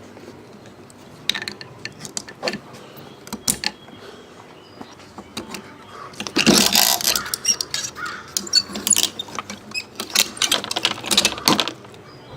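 Roof-rack wind fairing being unclipped and taken off the crossbars: scattered plastic and metal clicks and rattles, busier and louder clattering in the second half.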